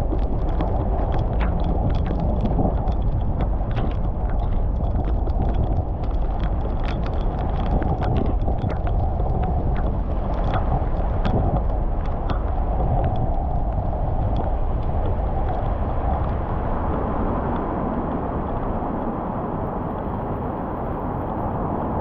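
Car driving on wet city streets in the rain: a steady low rush of road and tyre noise, with many scattered sharp ticks of raindrops on the car that thin out after about two-thirds of the way through.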